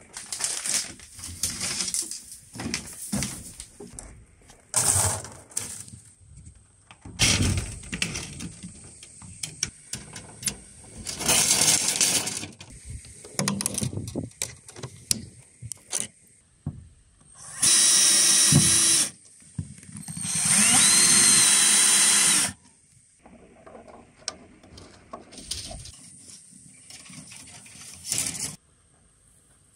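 A cordless drill runs in two steady bursts of about one and a half and two and a half seconds, past the middle. The second burst's whine rises as it spins up. The drill is twisting galvanized wire ties tight around bamboo poles. Around the bursts are irregular clicks and scraping of wire and pliers being handled.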